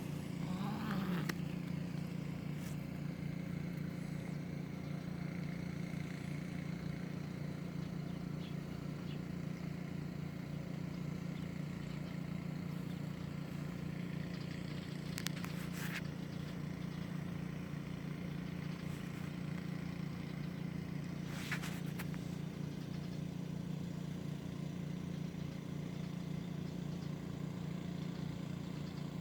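A steady low mechanical hum, like a motor or engine running, with two brief faint scraping sounds about halfway through and again about two-thirds of the way in.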